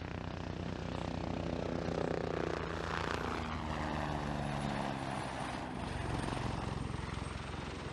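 A helicopter flying by: a steady engine drone with fast rotor pulsing, its pitch falling a few seconds in as it passes.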